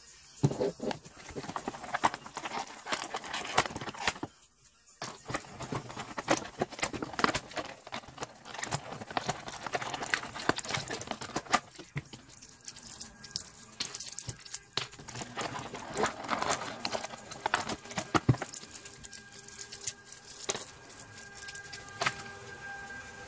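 Clear plastic packaging crinkling and clicking as hands handle a boxed action figure and pull pieces from its plastic tray, with a brief pause about four seconds in.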